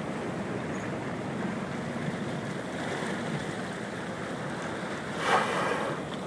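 Water lapping and wind on the microphone, then about five seconds in a surfacing whale blows once: a short, loud whoosh of breath through its blowhole.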